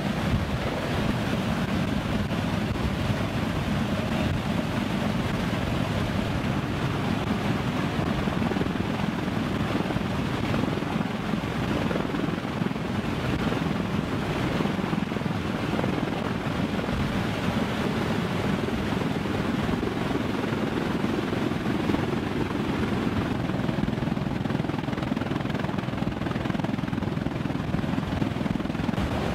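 Steady aircraft noise in flight: a KC-130J tanker's engines and CH-53E Super Stallion helicopters' rotors running together with wind rushing past the microphone, a low, even drone with no distinct beats or changes.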